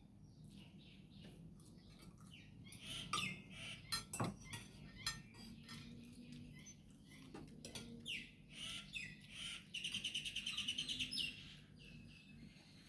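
Spoons and dishes clinking now and then during a meal, with a bird's fast, high chirping trill about ten seconds in.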